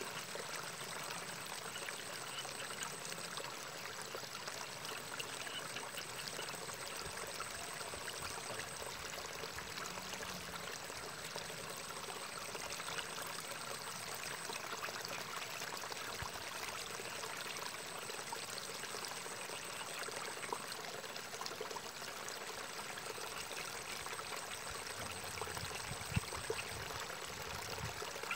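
Steady trickle of water running in a small ditch, with a couple of faint clicks near the end.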